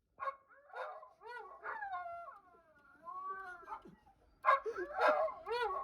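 High-pitched howling voice imitating a car alarm siren: a string of irregular wails and whoops that glide up and down, with short gaps between them, louder in the second half.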